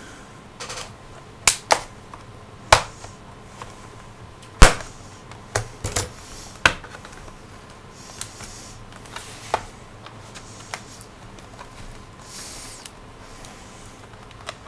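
Clips of a Dell Inspiron 11 3000 laptop's bottom case snapping loose as a plastic pry tool is worked along the seam: irregular sharp clicks, the loudest about four and a half seconds in, with a couple of soft scrapes of the tool.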